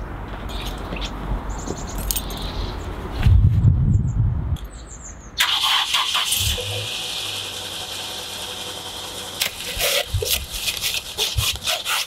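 A snow-covered car's engine started from cold about five seconds in, after which it keeps running under a steady hiss. Near the end come quick strokes of a snow brush sweeping snow off the car.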